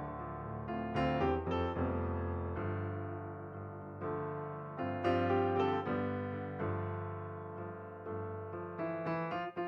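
Background piano music: slow notes and chords struck about once a second and left to ring and fade.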